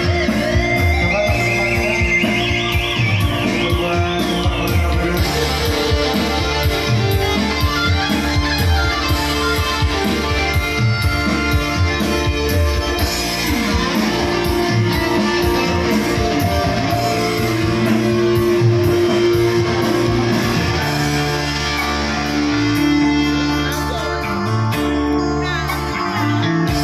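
Instrumental music from an arranger keyboard (orgen tunggal) playing through PA speakers: a plucked, guitar-like melody over a steady bass beat.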